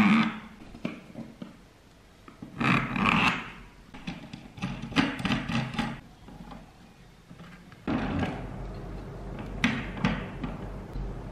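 Plastic coil bobbin formers clattering and knocking as they are handled and slid onto the threaded shaft of a hand-crank coil winder, in several short bursts. A low steady hum comes in about eight seconds in.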